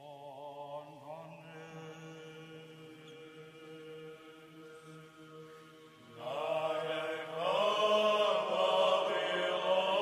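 Orthodox chant: a sung melody over a steady held low drone note, soft at first, with louder voices coming in about six seconds in.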